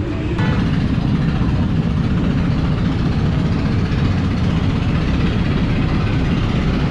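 Steady loud rumble and hiss of a gas-fired burner under a large wok of frothing liquid at a rolling boil.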